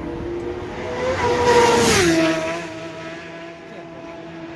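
Superbike racing motorcycle going past at full speed: its engine note swells to its loudest about a second and a half in, drops in pitch as it passes, then fades away.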